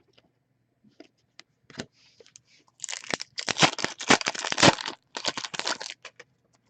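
Crinkling and tearing of a trading-card pack wrapper being opened and handled, loudest for about three seconds from about three seconds in, after a few light clicks.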